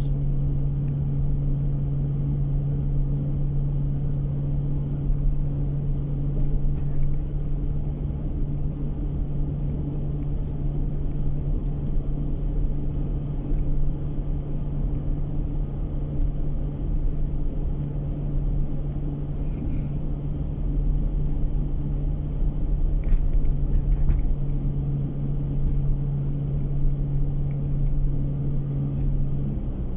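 Steady drone of a car's engine and tyre rumble on dry asphalt, heard from inside the cabin while cruising, with a few faint clicks; the hum's pitch drops slightly near the end.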